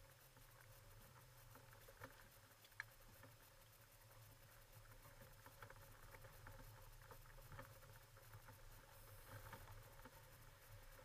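Faint, muffled low drone of the filming vehicle's engine as it drives slowly off-road, with scattered light ticks and knocks, and two sharper clicks about two to three seconds in.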